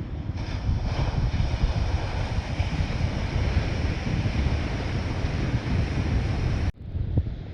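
Gusty wind buffeting the microphone over the steady hiss of breaking surf. The sound cuts off abruptly near the end and resumes slightly changed, as at an edit.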